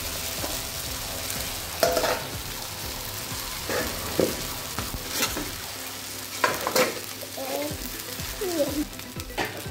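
Dosa sizzling on a hot griddle while a metal spatula presses and scrapes over it, with sharp scrapes against the griddle at irregular moments through the steady sizzle.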